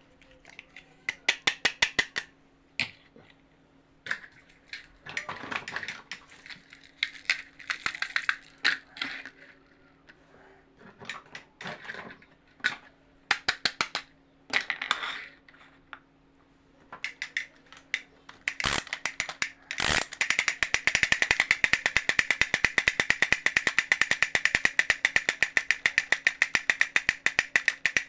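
Plastic toy mechanism clicking: short runs of rapid ratchet-like clicks with pauses between them, then a couple of knocks, then a steady fast ratcheting that runs on without a break, like a geared toy kitchen appliance being cranked or spun.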